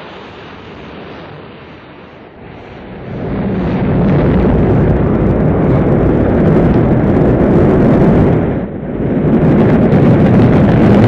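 Rocket launch noise: the engines of a large rocket with two side boosters igniting and lifting off. A deep rushing rumble swells about three seconds in and stays loud, dipping briefly near the end.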